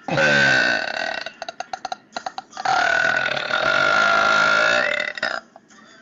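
A woman doing big burps: one burp of about a second, a quick stuttering run of short burp sounds, then a single long drawn-out burp of nearly three seconds.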